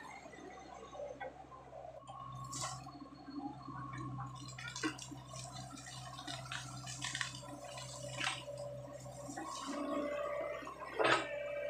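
Sany SY55C mini excavator running, its engine and hydraulics giving a steady hum while the bucket works through wet mud and water, with sloshing, squelching and scattered knocks. A sharp clank comes near the end, and the hydraulic whine grows stronger.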